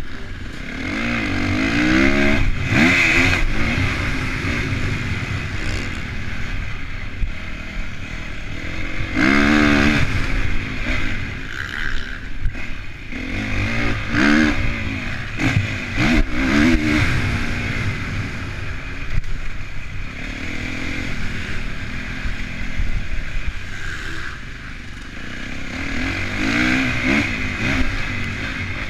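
Honda CRF450 motocross bike's single-cylinder four-stroke engine, heard from a camera mounted on the bike, revving up and dropping back again and again as it is ridden around a dirt track. It makes several hard pulls that rise in pitch, the strongest about a third of the way in and around the middle.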